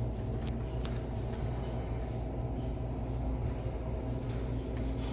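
Pizza vending machine running with a steady low hum while it bakes a pizza, with two faint clicks about half a second and a second in.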